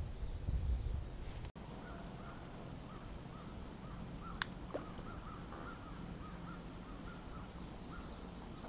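A bird calling in a long run of short, rapid, repeated notes, with a single sharp click about four and a half seconds in.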